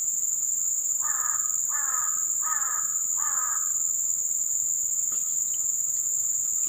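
A crow cawing four times in quick succession, each caw a short, falling call, over a steady high-pitched drone of insects.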